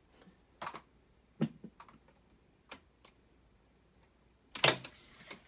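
Otari MX-5050 reel-to-reel tape recorder's front-panel switches and transport buttons clicking, about five light clicks spread over the first three seconds. A louder clunk comes near the end as the record and play buttons engage the tape transport.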